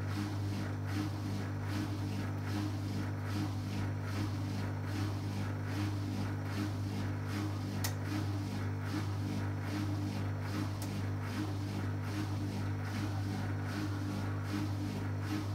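Beko BKY 2317 B front-loading washing machine running on its 30-degree short programme: a steady low hum with a fast, even pulse over it.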